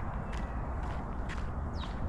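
Footsteps of a person walking at an even pace, about two steps a second.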